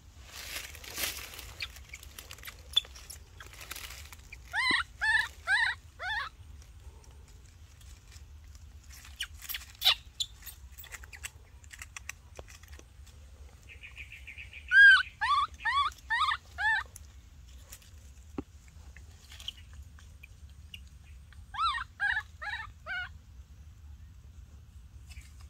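Baby macaque giving three bouts of short squealing calls, four or five rising-and-falling notes in each, between faint crackles of dry leaves.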